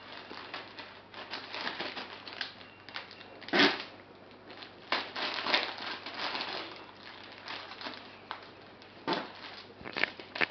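Plastic zipper-seal freezer bag crinkling and rustling as frozen asparagus spears are handled in it, in irregular bursts with a few sharper crackles.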